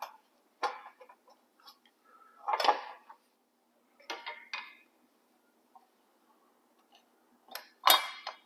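Metal chain guards of a McLane reel mower being slid back into place: a string of separate metallic clanks and clinks at uneven intervals, the loudest near the end.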